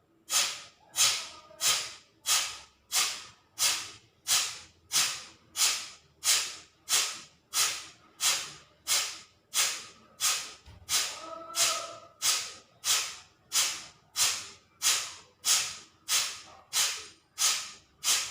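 Kapalabhati (fast breath) pranayama: a person forcing short, sharp exhalations out through the nose in a steady rhythm of about three puffs every two seconds.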